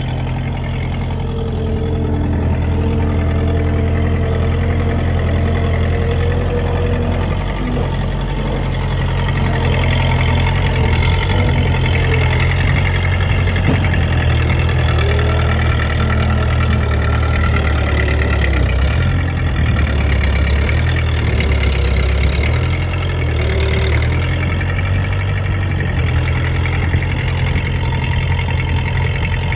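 Case 1845C skid-steer loader's diesel engine running steadily under load as the machine works, its pitch shifting a little at times.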